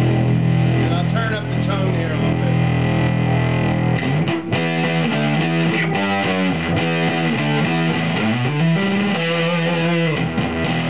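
Electric guitar played through a Danelectro Cool Cat fuzz pedal with the fuzz turned all the way up: a held low fuzzed note rings for about four seconds, then a run of fast single-note lines with a bend, settling back onto a held low note near the end.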